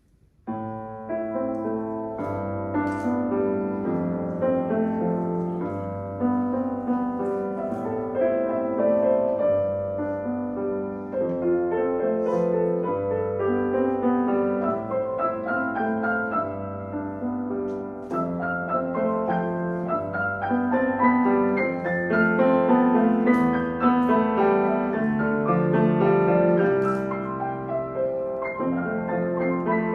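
Piano playing a flowing piece, with melody and chords over low bass notes repeated every couple of seconds, starting about half a second in.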